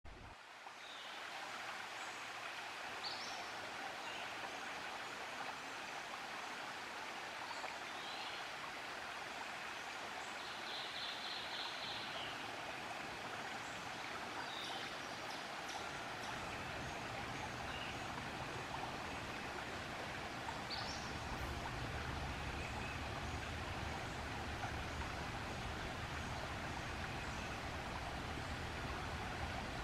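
Shallow stream running steadily, with short high bird chirps now and then. About halfway in a low rumble joins it.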